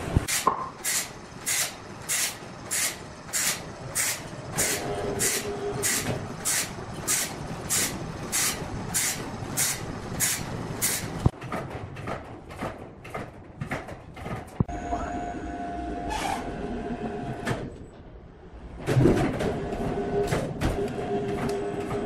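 Rhythmic swishing strokes, about two a second, for the first half. Then a large band sawmill runs with a steady motor whine; it dips briefly and comes back louder about three-quarters of the way through.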